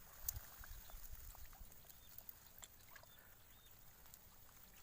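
Near silence: faint outdoor hiss with a few small clicks, the sharpest about a third of a second in.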